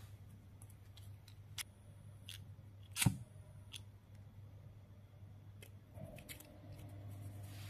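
A handful of sharp, separate plastic clicks and taps as a thin plastic stick is worked through a hollow plastic ping pong ball, the loudest about three seconds in and a small cluster near the end, over a steady low hum.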